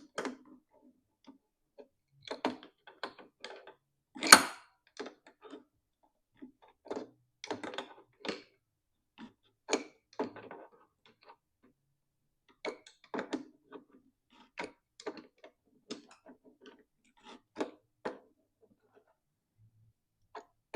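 Irregular clicks and taps of hands and a tool working a Teflon-taped threaded fitting into a plasma cutter, with one sharper knock about four seconds in.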